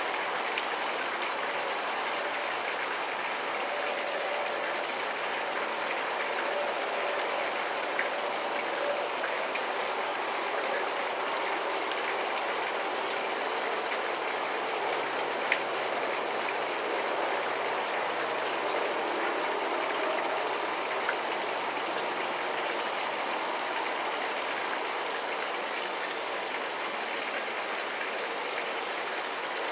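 Steady, even hiss of background noise with a few faint ticks.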